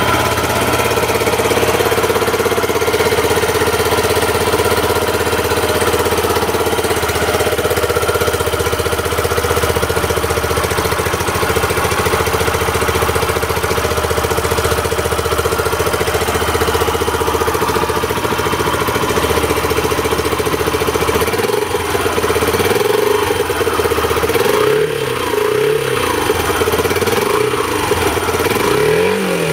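Yamaha YBR 125's single-cylinder four-stroke engine idling steadily through its standard factory exhaust. In the last part there are a few short blips of the throttle, each a quick rise and fall in pitch.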